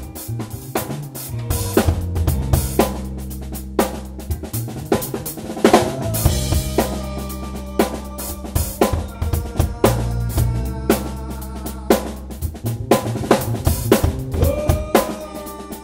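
Rock trio jamming: a busy drum kit with snare and bass drum hits, sustained bass guitar notes underneath, and guitar lines with bent notes on top.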